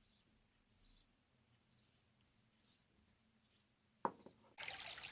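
Near silence with faint high bird chirps, then a click about four seconds in, and half a second later a sudden steady running-water sound, like a flowing stream.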